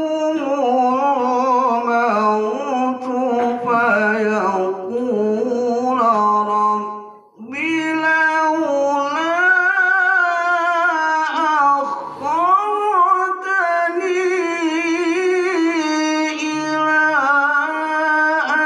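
A man's voice chanting an Arabic religious text into a microphone in a slow, ornamented melody, holding long wavering notes, with a short breath pause about seven seconds in.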